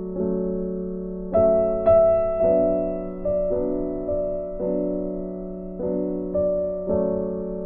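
Gentle background piano music: soft notes and chords struck about every half second, each fading out, with a brighter pair of notes about a second and a half in.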